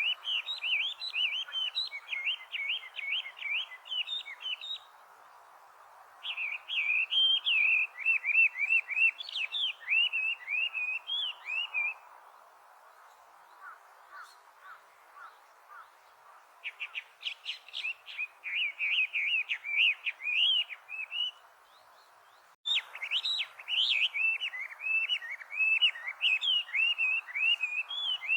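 Chinese hwamei singing: long, loud phrases of rapid, varied whistled notes, each lasting about four to five seconds and broken by short pauses. A quieter run of notes comes in the middle gap.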